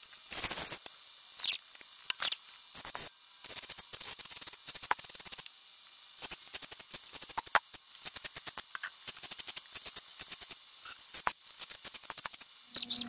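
A steady high-pitched whine runs under scattered light clicks and handling noises as a MIG welding torch and a work light are handled.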